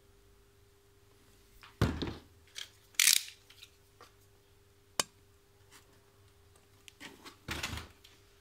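Hard plastic tool case being handled and set down on a wooden workbench: a dull thunk about two seconds in, a short scrape about a second later, a sharp click about five seconds in, and another thunk near the end.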